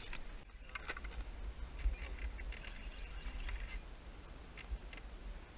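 Low rumble of wind on the microphone, with faint scattered clicks and taps.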